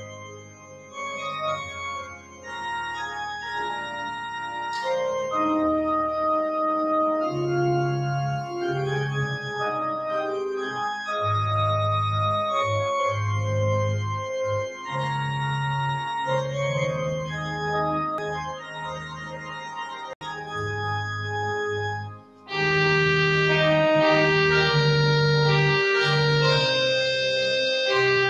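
Church organ playing the closing voluntary: sustained chords under a slow-moving melody. Shortly after two-thirds of the way through it breaks off for a moment and comes back louder and brighter.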